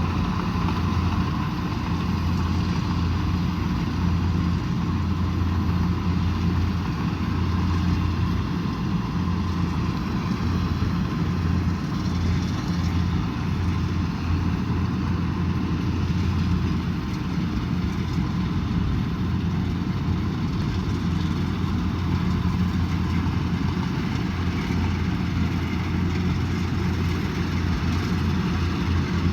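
Kubota DC108X combine harvester's diesel engine running steadily at an even, unchanging pitch.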